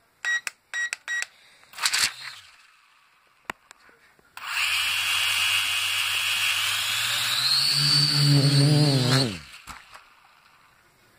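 Three short electronic beeps, then a small UDI RC quadcopter's motors and propellers start up with a steady high whine and low hum. About three seconds in, the pitch rises as the throttle goes up; then it winds down and stops.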